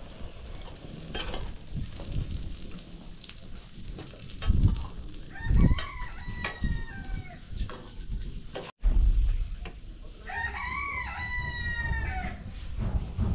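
A rooster crowing twice, each crow about two seconds long, the first a little past the middle and the second near the end. A couple of low thumps come just before the first crow, over a steady low rumble.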